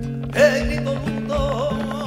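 Flamenco music: a Spanish guitar plays plucked notes while palmas hand-claps tick in. About half a second in, a singer's voice enters sharply and holds a wavering, ornamented line.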